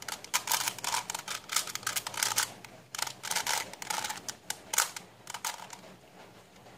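Plastic face-turning octahedron puzzle being turned fast by hand: a rapid run of clicks and clacks as its layers snap round, thinning out near the end.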